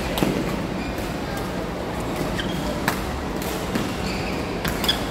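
Badminton rally: about three sharp racket-on-shuttlecock hits and short shoe squeaks on the court floor, over the steady background din of a busy multi-court hall.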